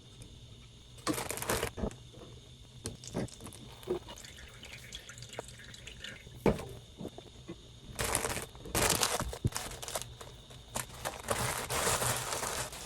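Water running and splashing in a few short spells, about a second in, around eight seconds in and again near the end, with small knocks and clicks in between.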